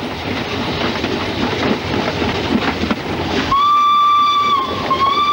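Narrow-gauge steam locomotive running by with its train, a steady noise of wheels and exhaust, then its whistle sounds twice about three and a half seconds in: a long blast and a shorter one after a brief break.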